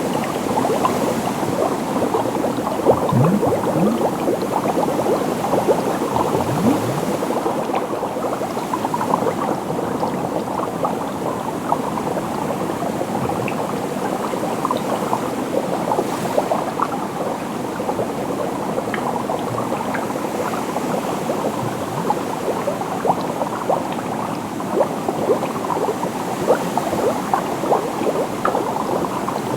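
Water bubbling and gurgling steadily, a dense stream of small rising bubble sounds.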